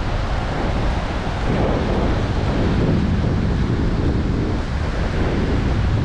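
Surf washing onto a sandy beach, stirred up after a typhoon, with wind buffeting the microphone in a steady low rumble.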